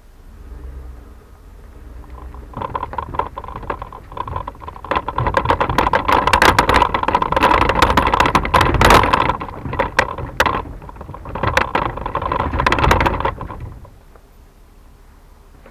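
Trailer tyres rolling backward over gravel, crunching and crackling. The sound builds over a few seconds and fades away near the end.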